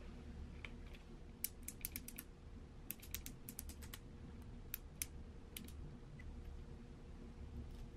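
Faint, sharp little clicks and crackles in quick runs, densest in the first half, of fingers handling thin plastic screen-protector film and pressing it onto a DJI Pocket 2 camera's screen.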